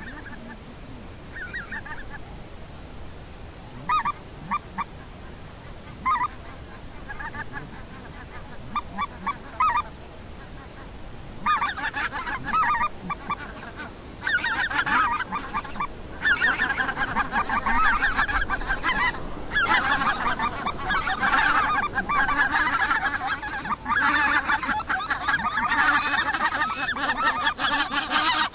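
Greylag geese honking: a few scattered calls at first, then from about eleven seconds in a dense chorus of many overlapping honks that gets louder, as of a flock coming in.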